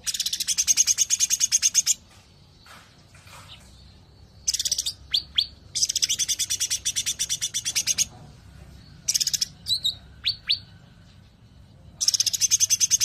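Cucak ranting bird singing its fast 'nembak rapat' song: bursts of rapid, high-pitched rattling trills, each one to two seconds long, separated by short pauses and a few sharp down-slurred whistles.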